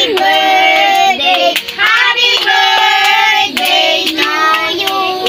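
Children singing the birthday song in a small room, with a few hand claps.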